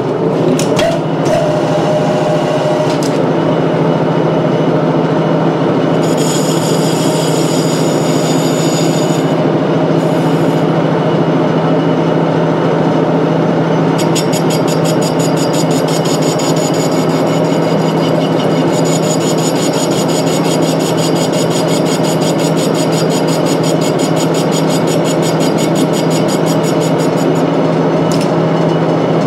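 Metal lathe running, its cutting insert turning out the middle of a wheel hub: a steady motor hum under a rough scraping cut. A fine, rapid high-pitched rattle comes in about six seconds in for a few seconds, and again from about fourteen seconds until near the end.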